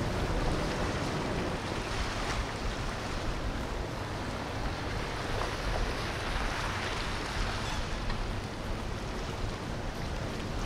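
Steady rushing noise of wind and water, with a low rumble underneath and no distinct engine note.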